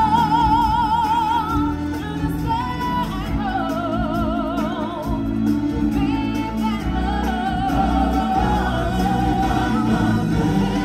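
Stage-show music with a singer holding long notes with strong vibrato over a full musical backing.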